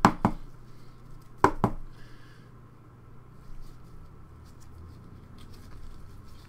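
A stack of trading cards being slid and flicked through in gloved hands: a few sharp snaps in the first two seconds, then light rustling and ticks as the cards move.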